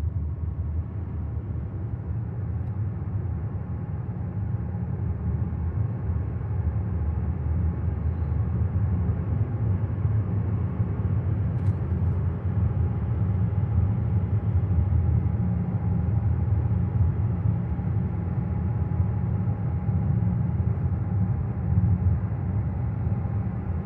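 Steady low rumble of a 2022 Cadillac XT6 running, with a faint steady hum above it and one faint click about halfway through.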